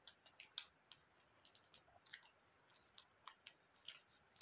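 Faint, irregular clicks and crackles of someone eating fried chicken close to the microphone: chewing and picking meat off a drumstick, about a dozen small clicks scattered through it.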